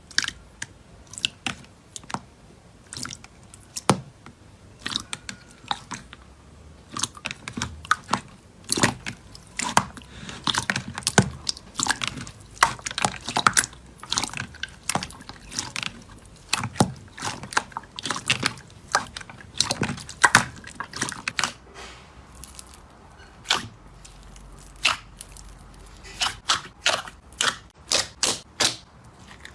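Slime being squeezed and poked by hand, giving irregular sticky clicks and pops. They come sparse at first, crowd together through the middle, thin out, then come in a quick run near the end.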